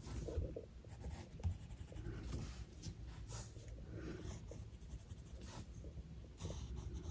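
A brown water-soluble colour pencil scratching faintly over textured Canson XL 180 gsm mixed-media sketchbook paper in short, irregular strokes.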